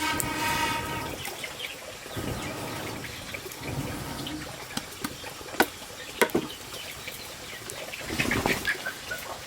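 A chicken calls at the start and again near the end over a steady trickle of water, with two sharp knocks in the middle.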